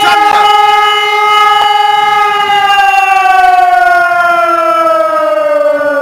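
Electronic eight-loudspeaker civil-defence siren sounding the steady all-clear tone (Entwarnung) of a test alarm. About two seconds in it begins to wind down, its pitch falling slowly and evenly.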